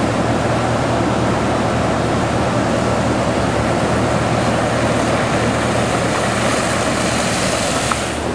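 Floodwater rushing over a road: a loud, steady noise of moving water, with a steady low hum underneath.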